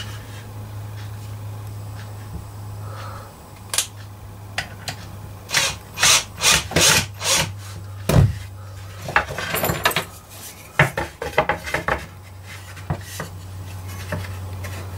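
Wooden workpieces being handled on a workbench: irregular knocks, taps and rubbing of wood on wood, in two busy stretches with a heavier knock about eight seconds in, over a steady low hum.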